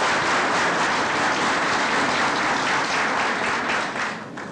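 A large crowd applauding, the clapping dying away near the end.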